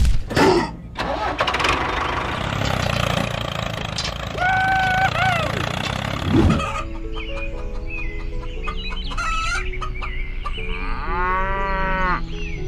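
Chicken clucking and a rooster crowing, over a steady low rumble in the first half that gives way to light background music about halfway through.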